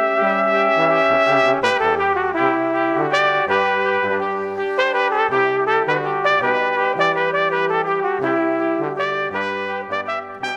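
Instrumental background music: a brass-led tune over a bass line that steps between notes.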